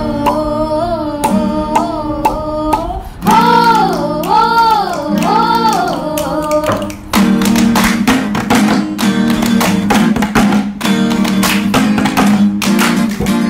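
Acoustic guitar chords under a young male voice singing a slow, wavering opening line. About seven seconds in, the group joins with rhythmic hand clapping over strummed guitar, a garba beat.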